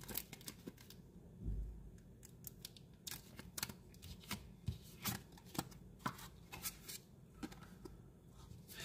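Pokémon trading cards being handled and thumbed through in the hand: a string of quiet, irregular flicks and clicks as card edges slide past one another, with a soft thump about one and a half seconds in.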